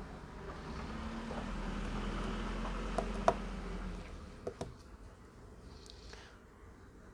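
Handling noise during phone repair, with a few sharp clicks of small tools and parts on the workbench as screws are fitted into a phone's frame. The loudest click comes a little past three seconds in, followed by a pair of clicks around four and a half seconds.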